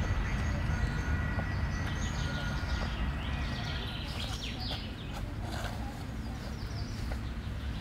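Park ambience: a steady low rumble of distant traffic with birds chirping over it, the chirping busiest in the middle.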